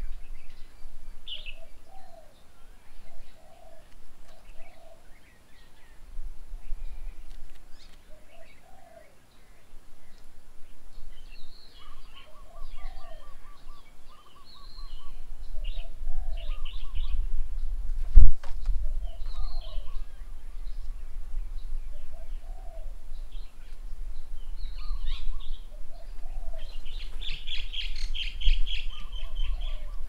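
Several wild birds calling: a short call repeated every second or two, with higher chirps and a loud spell of chattering near the end. A low rumble sets in about halfway, and a single sharp knock comes a little past the middle.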